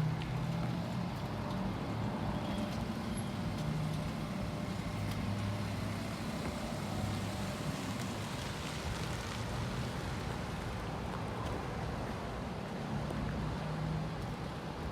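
Steady road traffic, with the low hum of motor vehicle engines running.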